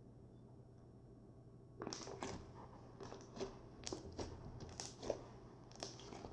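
Slime being pressed with a potato masher: a string of irregular squishes and crackles that starts about two seconds in.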